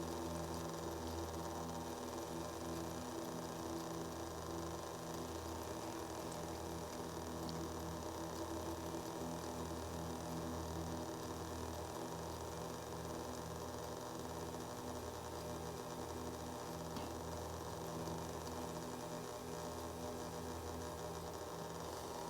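Vintage Derbyshire watchmaker's lathe running steadily, its drive motor giving a continuous hum as the spindle turns for hand-graver cutting of a brass part.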